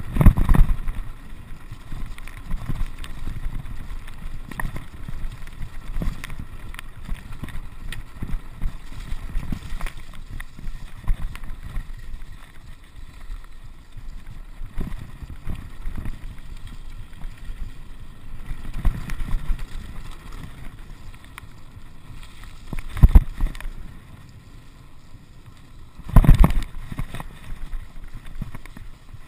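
Mountain bike descending a rough, muddy stony track: a continuous rattling rumble of tyres and frame over loose rocks, with wind buffeting the camera microphone. Two louder short bursts come near the end.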